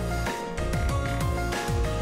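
Background music: sustained melodic notes over a steady beat with deep bass drum hits.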